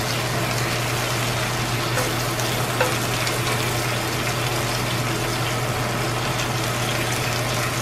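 Sliced mushrooms and a steak frying in a cast iron skillet: a steady sizzle, with a wooden spatula stirring them and a few light taps on the pan. A steady low hum runs underneath.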